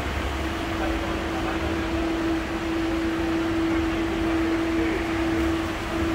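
A steady mechanical hum, one constant whine over a low rumble and a noise haze.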